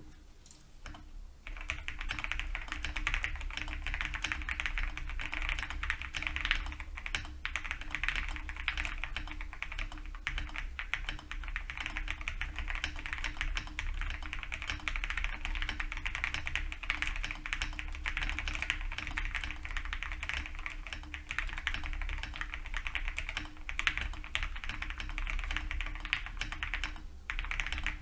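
Fast, continuous typing on an Owlab Jelly Epoch custom mechanical keyboard fitted with lubed Cannonkeys Lavender switches and ASA-profile keycaps. The typing starts about a second and a half in and breaks off briefly near the end.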